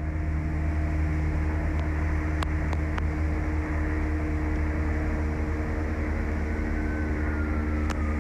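Steady low mechanical hum over outdoor city background noise, with a few faint clicks. Near the end a distant siren's wail starts, falling in pitch.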